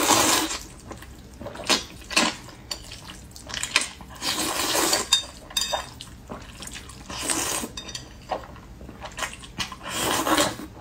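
A person slurping spicy fire-chicken instant noodles, sucking them in with several wet slurps a second or two apart.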